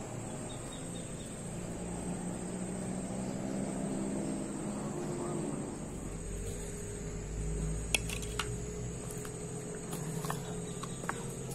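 Insects keep up a steady high-pitched trill. A low motor drone swells and fades in the first half. From about two-thirds of the way in come a few sharp clicks and knocks of fishing gear being handled.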